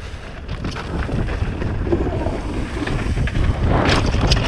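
Wind buffeting a helmet-mounted action camera's microphone over the rumble and rattle of a mountain bike riding fast down a rough, rocky trail, with a harder clattering hit about four seconds in.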